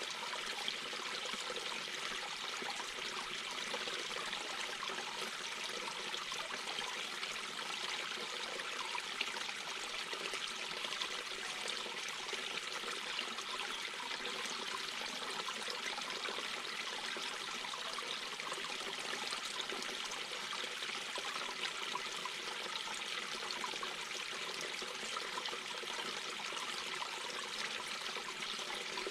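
Mountain brook babbling and trickling over stones, a steady, even rush of water.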